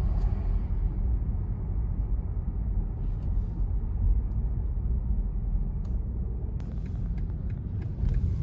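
Car road noise heard from inside the cabin while driving: a steady low rumble of tyres and engine, with a few light clicks near the end.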